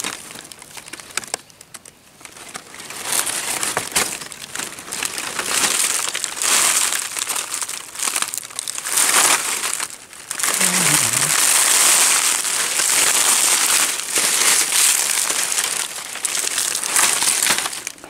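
Dry leaf litter crunching and rustling as someone moves through it and handles the leaves. It is quieter in the first few seconds and nearly continuous from about ten seconds on, with a brief voiced sound about eleven seconds in.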